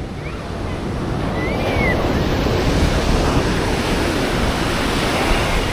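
Ocean surf washing up the beach, swelling to its loudest around the middle, with wind buffeting the microphone.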